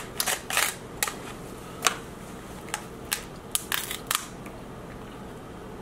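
King crab leg shells cracking and snapping by hand: a string of sharp, irregular cracks over the first four seconds, then a quiet stretch.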